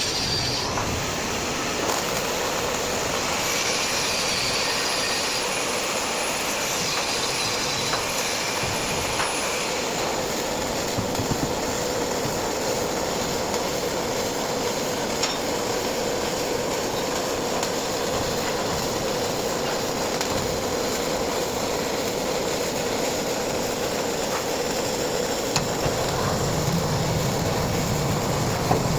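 MIG welding arc crackling steadily, with a constant hum under it.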